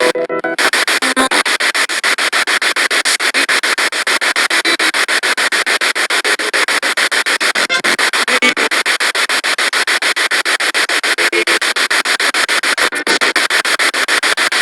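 Spirit box radio sweeping through stations: a rapid, even chopping of static, broken by brief fragments of broadcast sound.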